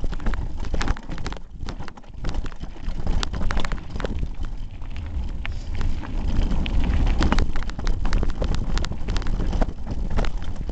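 Hardtail mountain bike clattering down a rocky trail: rapid, irregular knocks and rattles from the bike and the duct-taped camera jolting over stones, over a steady low wind rumble on the handlebar microphone.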